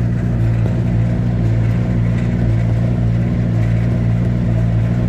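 Tractor engine running at a steady speed, a constant low hum.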